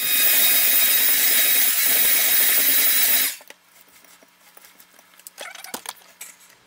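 Black+Decker electric hand mixer running at a steady speed, beaters whirring through sweet potato pie filling in a glass bowl as cream is blended in to loosen it; it cuts off after about three seconds. Afterward, quieter scraping of a spatula around the bowl and a few light knocks.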